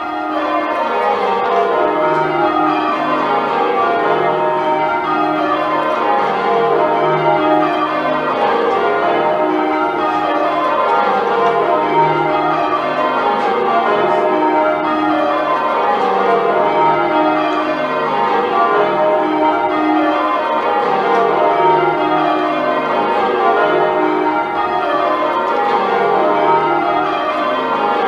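A ring of ten church bells, a 1945 Taylor ring, being change-rung full circle. The bells strike one after another in continuous rows, each row stepping down in pitch from treble to tenor.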